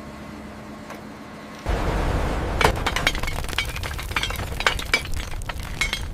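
A low steady hum, then about a second and a half in a sudden loud low rumble starts, scattered with many sharp cracks and clinks like material breaking and crunching.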